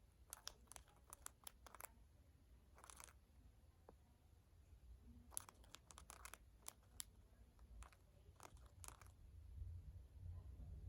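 Faint, irregular clusters of soft clicks and crunches, a few quick ticks at a time with short pauses between: the comfort noise of a pet, Lovey.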